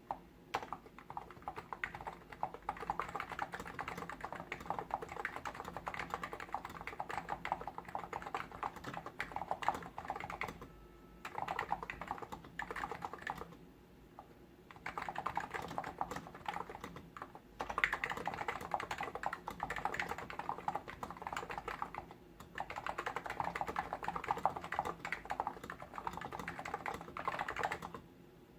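Fast continuous typing on a Hansung GTune CHL8 tenkeyless keyboard with contactless capacitive switches, a dense run of soft key clacks. The typing comes in long bursts broken by brief pauses four or five times.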